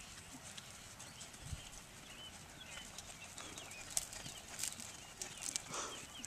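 Soft hoofbeats of a horse trotting on sand footing, with small birds chirping in the background and a few sharp clicks from about four seconds in.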